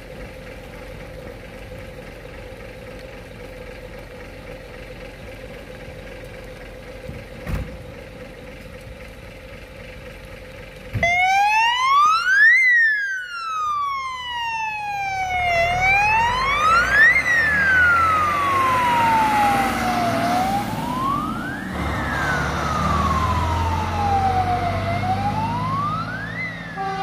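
Fire engine idling with a steady hum; about eleven seconds in its siren comes on, a slow wail rising and falling roughly every four to five seconds, while the engine pulls away underneath.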